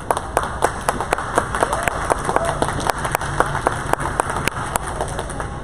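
Spectators clapping in a steady beat, about four claps a second, over crowd chatter; the clapping thins out near the end.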